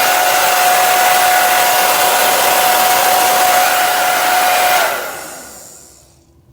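Hair dryer running with a steady, loud blowing and a high whine, switched off about five seconds in, its motor winding down and fading.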